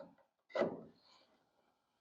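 A single brief scrape about half a second in, from working at a door-trim retaining clip on the car body, followed by a fainter tick.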